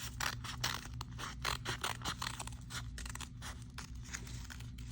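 Scissors cutting paper: a series of short, crisp snips, a few per second.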